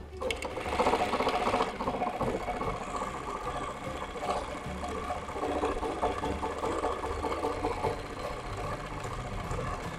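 Jack JK-T1906 computerized pattern sewing machine stitching a programmed pattern onto denim in its clamp frame: a fast, steady run of needle strokes, a little louder in the first second or so.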